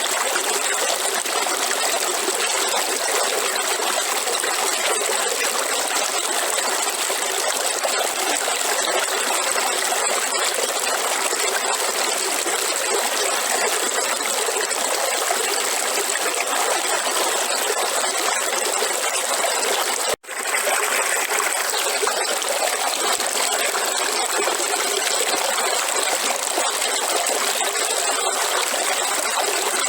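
River water flowing steadily over rocks, an even rushing with a split-second dropout about two-thirds of the way through.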